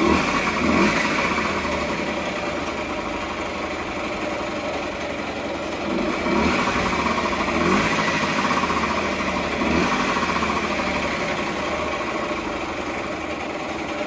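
Honda Dio AF27 scooter's 50cc two-stroke single-cylinder engine running just after starting, with the throttle blipped briefly four times. The freshly rebuilt engine, running on its old piston rings, runs fairly well.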